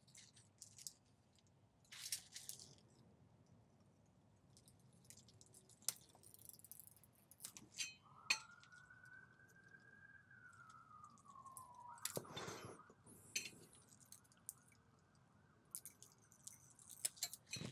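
Faint, scattered light metallic clicks and clinks of a steel ruler being set down and shifted against a plane blade while it is checked for flatness. A faint tone starts about eight seconds in, glides up and then down, and holds steady until near the end.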